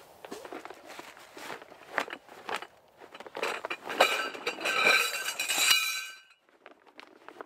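Metal tent poles clattering and clinking against one another as they are tipped out of their bag onto leaf litter, with a metallic ringing that cuts off suddenly. Before that, footsteps and rustling in dry leaves with a few light knocks.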